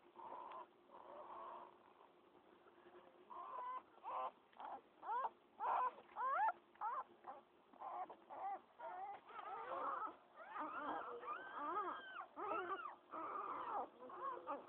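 Newborn pit bull puppies squealing in short cries that rise and fall in pitch. The cries start a few seconds in and grow busier, with several pups crying over each other in the second half.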